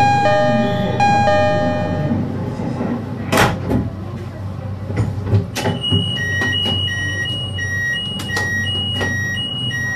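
Japanese-style train door chime: a two-note ding-dong sounds three times, then a short rush of air about three seconds in and a few knocks. From about six seconds a high two-tone beep alternates steadily, high-low, roughly twice a second.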